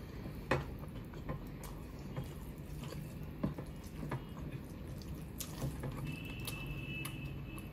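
Wet, irregular clicks and squelches of fingers mixing curry-soaked rice and chicken on a plate, with chewing sounds as a handful is eaten. The sharpest click comes about half a second in.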